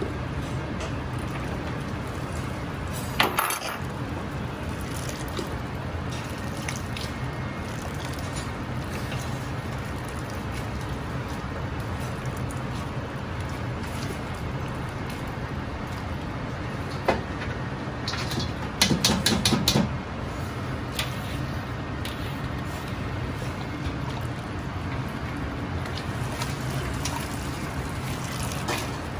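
Big stockpot of paitan broth worked with a wooden paddle and a wire spider strainer over a steady kitchen rumble from the boiling pot. One knock comes about three seconds in, and a burst of rapid metal rattling a little past the middle as the strainer clatters against the pot.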